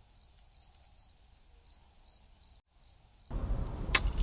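Crickets chirping in short, evenly repeated chirps, a night-woods sound effect. About three seconds in, a much louder, deep noise sets in, with a sharp click a little later.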